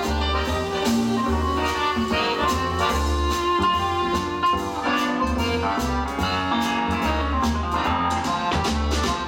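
Accordion, double bass and drum kit playing jazz together: low plucked bass notes under held accordion lines, with cymbal strokes keeping time.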